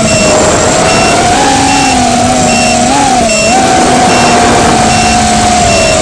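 FPV quadcopter's motors and propellers whining, the pitch rising and falling with the throttle, over heavy wind rush on the onboard camera's microphone. A faint high beep repeats about every 0.8 seconds.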